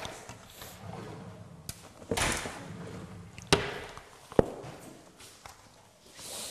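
Handling noises: a rustle about two seconds in, then two sharp knocks about a second apart.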